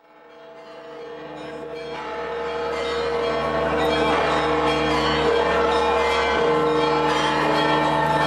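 Church bells ringing together in a continuous peal, fading in over the first few seconds and then holding steady.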